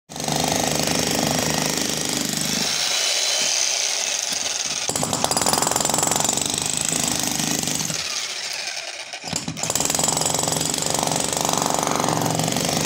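Corded electric demolition hammer chiselling into a concrete slab, hammering continuously. It eases off briefly about eight seconds in, then picks up again at full force.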